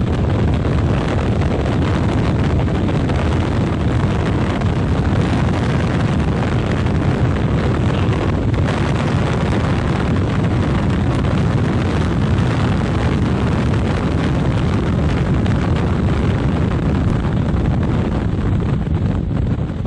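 Wind buffeting the microphone at an open window of a moving car, a steady heavy low rumble with no break, with the car's driving noise underneath.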